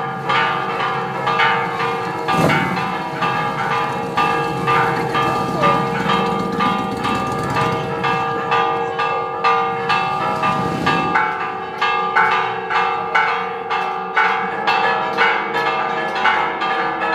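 Church tower bells ringing a fast festive repique: quick, evenly repeated strokes over a sustained ringing hum.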